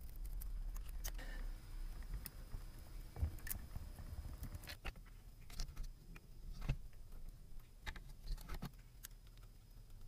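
Irregular light metal clicks, taps and small rattles of a hose clamp being handled and tightened with a screwdriver on a rubber vent hose.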